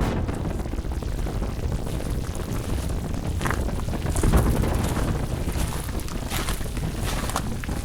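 Steady rushing noise like wind, with a deep rumble underneath and a few short crackles.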